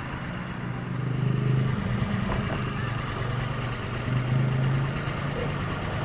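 TVS Dazz 110 scooter's single-cylinder four-stroke engine idling steadily with its intake and exhaust valves freshly adjusted. There is no loud ticking or knocking from inside the engine.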